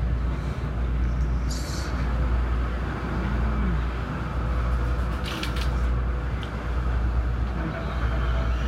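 A Southeastern Class 465 Networker electric multiple unit, heard from inside the carriage, running at speed with a steady low rumble of wheels on track. Brief high clicks or rattles come about a second and a half in and again around five and a half seconds.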